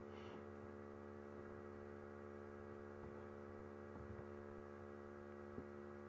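Near silence with a faint, steady electrical mains hum.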